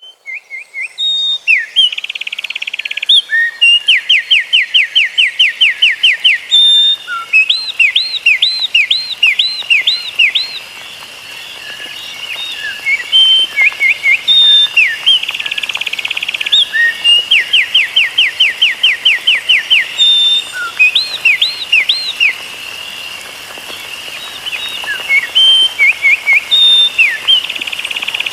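A songbird singing in runs of fast, repeated, high whistled notes and trills, with looping sweeps between the runs. It eases off briefly about ten seconds in and again a little past twenty seconds.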